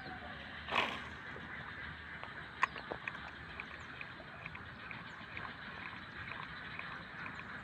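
Fowl calling outdoors, with a short rushing burst about a second in and a sharp click near the middle, then a run of quick, regular high ticks.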